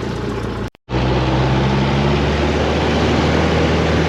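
Small Cessna's piston engine and propeller idling steadily, heard inside the cabin. There is a brief total cut in the sound just under a second in.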